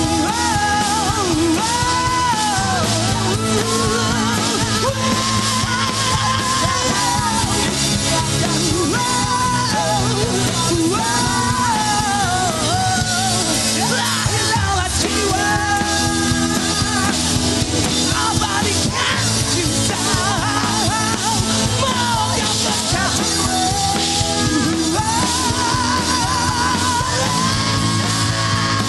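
Rock band playing a loud, steady instrumental passage: drums and bass underneath, with a wavering lead melody on top that takes on a vibrato near the end.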